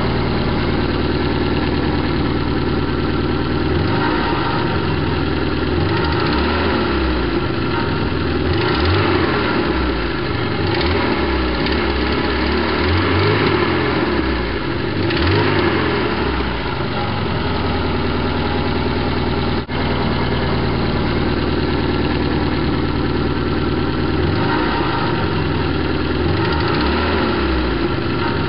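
BMW E21 316's 1.8-litre M10 four-cylinder engine running noisily with a slight misfire, its engine speed shifting up and down in stretches. The owner guesses wrong ignition timing after a head gasket replacement and carburettor rebuild.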